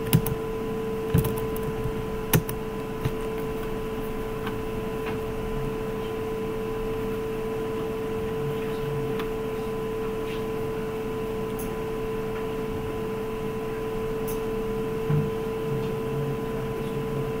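A steady, even hum, with a few short sharp clicks in the first three seconds.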